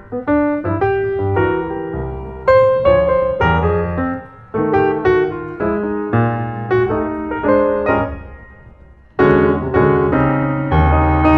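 Background piano music: a run of struck notes and chords that dies away about eight seconds in, then comes back at full strength.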